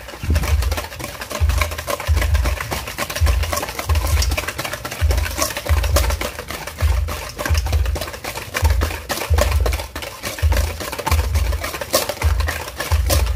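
Wire whisk beating sugar, oil and eggs in a stainless steel bowl, the wires scraping and clicking fast and continuously against the steel as the mixture creams. Under it runs background music with a steady low beat.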